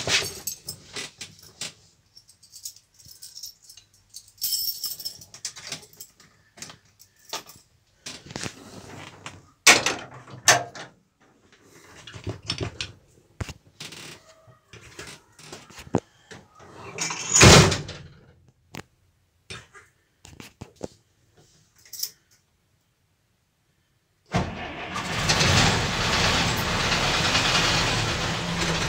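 Clicks, knocks and key rattles in a truck cab, with one loud bang about two-thirds of the way through. Near the end the Robur truck's air-cooled engine starts suddenly and keeps running steadily.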